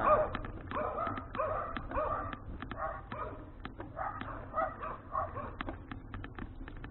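A dog barking over and over, a bark about every half second, growing fainter after about five seconds, over a steady low rumble with scattered sharp ticks.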